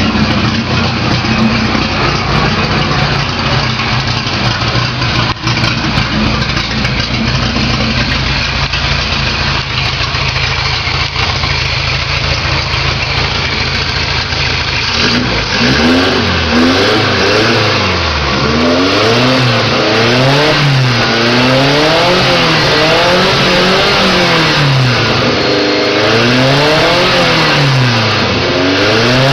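Volkswagen Gol's naturally aspirated four-cylinder engine through a 4x1 header exhaust, running loud. It idles steadily for about half the time, then is revved up and down repeatedly, the pitch rising and falling every couple of seconds.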